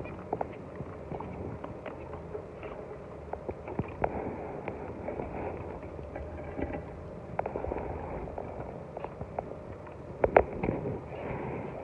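Zebra finches in a cage: irregular short clicks and taps over a low background, with one louder click about ten seconds in.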